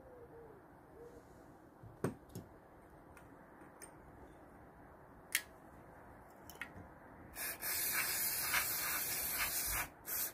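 Spray hissing from a nozzle for about two seconds, with a short burst just before the end, as a lawnmower carburettor's fuel bowl is blasted clean. Earlier, a few sharp clicks of small parts being handled.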